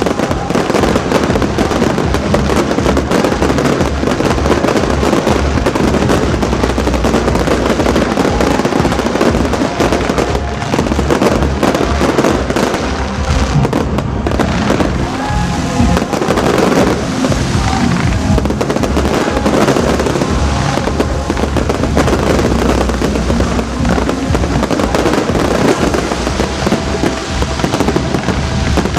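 Fireworks display: a continuous barrage of rapid bangs and crackling, with music playing underneath.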